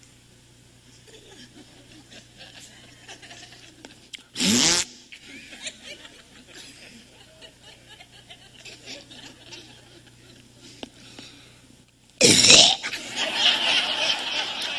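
Theatre audience laughing during a pantomime, with two short, loud wordless vocal cries from the comedian, about four seconds in and about twelve seconds in. The second cry sets off louder laughter.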